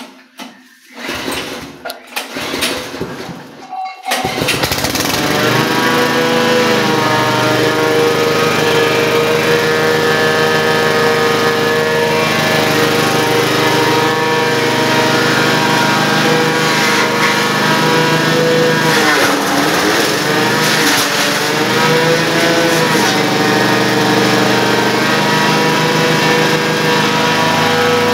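Small gasoline engine on a forage chopper cranked over a few times, catching about four seconds in and then running steadily, driving the chopper's four-blade cutter as elephant grass stalks are fed through. Its pitch sags briefly around twenty seconds in, as under the load of the stalks.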